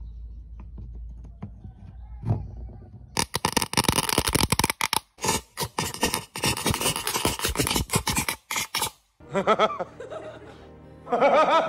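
Electrical crackling and snapping of sparks as the cassette deck's circuitry shorts out and smokes: a dense, irregular run of sharp cracks lasting about six seconds. After it, a man's voice from a film clip comes in and grows louder near the end.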